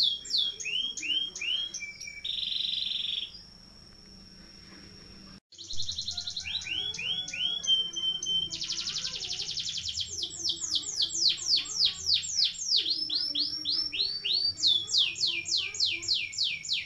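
Domestic canary singing a rolling song: fast trills of repeated downward-sweeping notes, one trill after another. The song breaks off about three seconds in and starts again after a pause of about two seconds.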